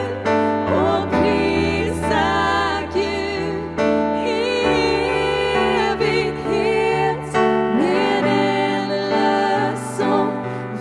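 Music: a worship song, with a voice singing long, wavering notes over sustained instrumental accompaniment.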